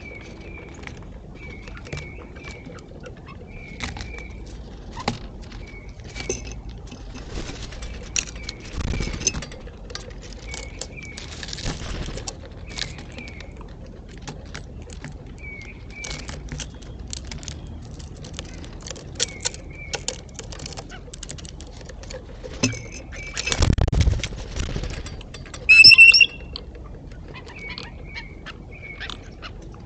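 Blue jays and a black squirrel feeding on sunflower seeds: many small clicks and taps of seeds being handled, with short chirps repeating throughout. About three quarters through comes a loud burst of wing flapping, then one loud, short blue jay call.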